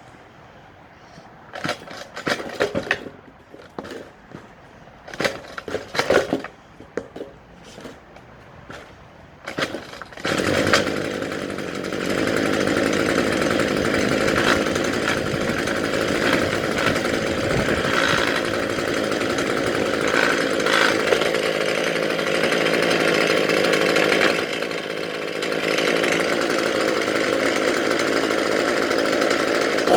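Gas weed eater engine: a few short bursts of noise at first, then it catches about ten seconds in and runs at high revs, easing off briefly near the three-quarter mark before revving back up.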